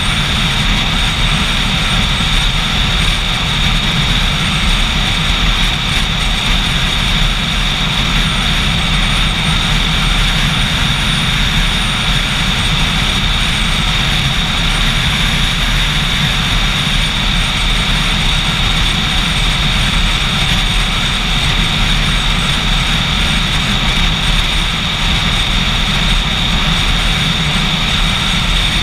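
Motorcycle riding at a steady speed: the engine's steady running mixed with heavy wind rush on the microphone, with no gear changes or revving.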